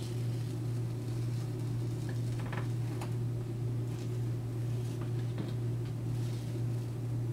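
Steady low hum throughout, with a few faint scratchy strokes of a craft knife drawn through thin foam along a steel ruler.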